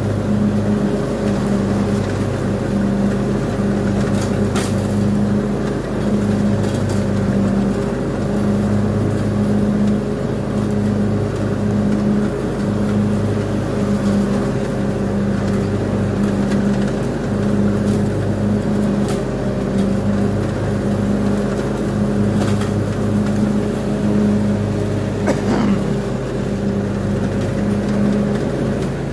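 Craftsman Z6000 zero-turn riding mower running steadily while mowing, its engine hum wavering slightly in a slow pulse. A few short clicks sound over it now and then.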